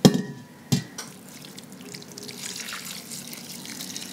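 Cooking liquid poured from an Instant Pot's stainless steel inner pot into a glass bowl over cooked chicken breasts, a steady splashing pour. Two sharp knocks in the first second come before the pour.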